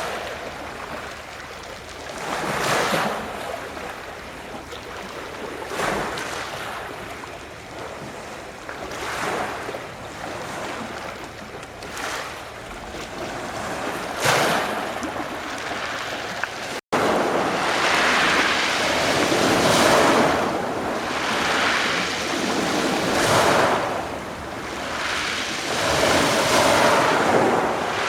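Adriatic sea waves washing onto the shore in repeated swells, one every few seconds. There is a brief break about two-thirds of the way through, after which the washes are louder and closer together.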